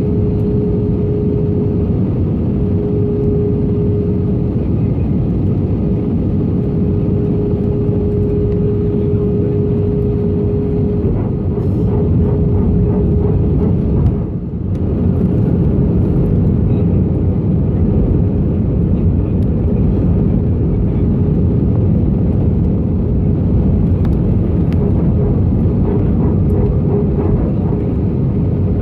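Steady roar of an airliner's jet engines and rushing air heard inside the passenger cabin during the descent to land, with a steady humming tone running through it. The noise dips briefly about halfway through.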